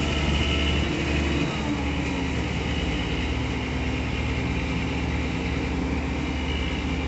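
Engine of a farm tractor running steadily, heard from inside its cab. A steady low whine joins the hum about two seconds in.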